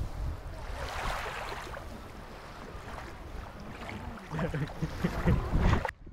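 Wind buffeting a GoPro's microphone: a steady low rumble with an airy hiss, gustier and louder in the last couple of seconds before it cuts off suddenly.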